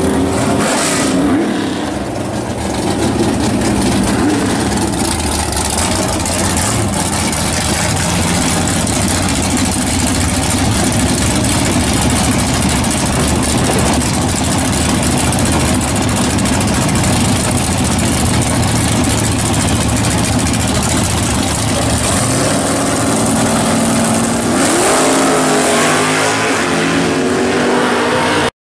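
Chevy Nova drag car's engine doing a burnout at first, then running steadily at the starting line. In the last few seconds it revs up hard for the launch, its pitch climbing through the run.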